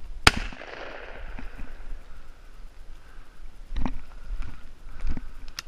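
A single shotgun shot: a sharp crack about a third of a second in, its echo dying away over about a second. A few soft knocks follow later.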